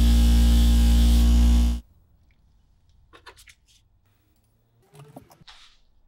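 A loud, steady electrical hum that cuts off abruptly about two seconds in. A few faint clicks and light scrapes follow.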